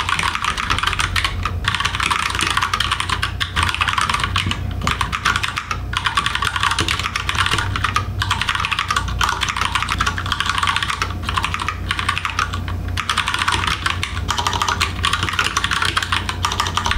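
Fast typing on a computer keyboard: a dense, continuous run of key clicks broken by short pauses every few seconds, over a steady low hum.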